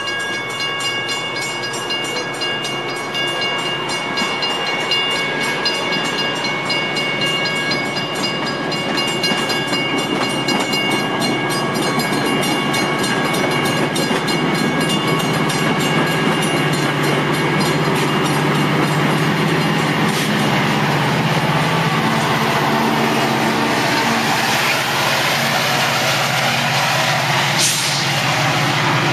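Metra commuter train of bilevel gallery cars passing, with steel wheels rolling on the rails. Grade-crossing warning bells ring over it at first and fade out. Later the diesel locomotive's engine grows louder as it goes by.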